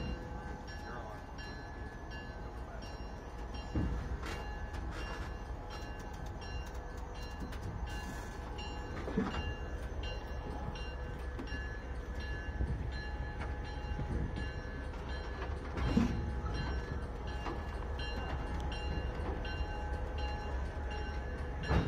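Alco diesel locomotives running steadily as one slowly shoves the other along the track, a constant low rumble with steady tones over it, broken by four short knocks a few seconds apart.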